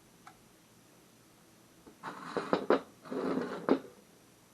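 Metal stove parts being handled: about two seconds in, a couple of seconds of scraping with a few sharp clicks.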